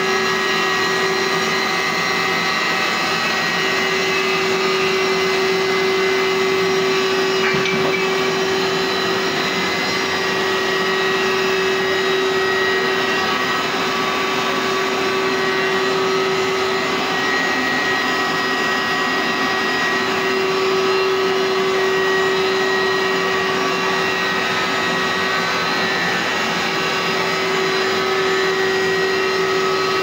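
Hoover SteamVac WidePath 9-amp upright carpet cleaner running as it is pushed over carpet: a steady motor and suction drone with a constant hum.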